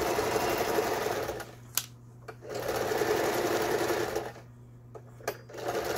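Lion household sewing machine stitching in three runs, stopping twice for about a second with a sharp click in each pause. It is a test sew of stitch patterns after repair of its upper-thread tension unit, and it is stitching normally.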